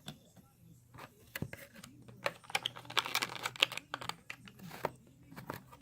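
Clicking and crackling of a plastic blister pack and its card being handled to get a 1/64 diecast car out. Scattered taps throughout, with a denser run of crinkly clicks in the middle.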